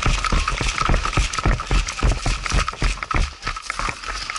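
Running footsteps over dry grass and dirt, a heavy thud at each stride, about two to three a second, with worn gear jolting and rattling against a body-worn camera. The strides ease near the end.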